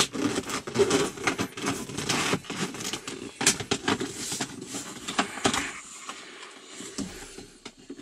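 Close rubbing, scuffing and light clicks of hands handling things around the shifter and camera. Dense for about five and a half seconds, then quieter with a few clicks.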